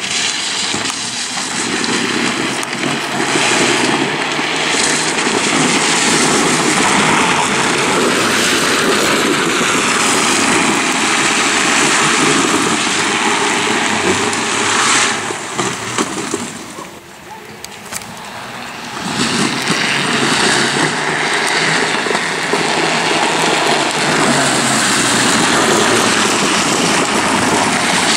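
Drift trikes' hard plastic rear wheels rolling and sliding on asphalt, a loud steady rushing scrape mixed with wind on the microphone. It drops away for a couple of seconds a little past the middle, then comes back.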